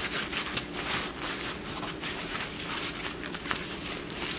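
Foam packing wrap rustling and crinkling as it is unrolled by hand, a run of irregular soft crackles.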